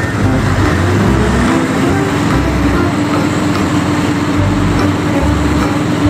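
Loud, steady truck engine noise with low uneven rumbling. A steady hum comes in about two seconds in.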